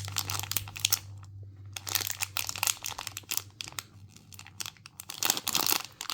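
Plastic blind-bag wrapper crinkling as it is squeezed and felt by hand, in irregular crackly bursts with a brief pause about a second in.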